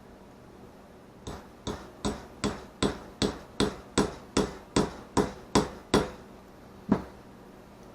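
Small hammer tapping in a steady rhythm, about thirteen sharp strikes at roughly two and a half a second, then one last strike a second later, knocking at a stuck, corroded part to drive it out.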